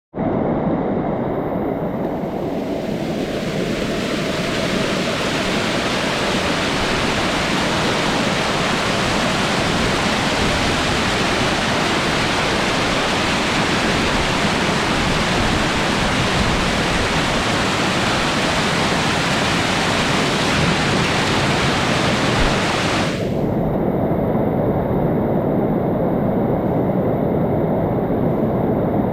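Monsoon rainwater rushing down stone fort steps as a waterfall: a loud, steady, even rush of water. About three-quarters of the way through it suddenly turns duller, losing its hiss.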